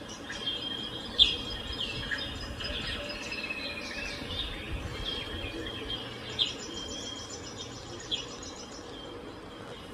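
Birdsong from a nature video played through a Vision 43-inch Android TV's built-in speakers: many short chirps, trills and whistles, with a few sharp louder chirps. The TV volume is raised at first and turned down again after a few seconds, so the birdsong gets softer in the second half.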